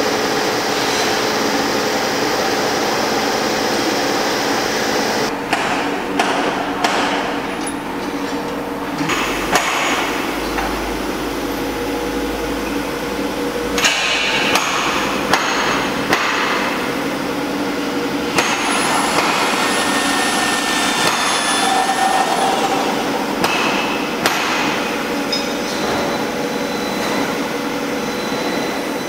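Steel roll forming machine running as sheet-metal strip feeds through its rollers: a steady mechanical hum with sharp metallic knocks and clanks now and then, and a thin high whine for a few seconds past the middle.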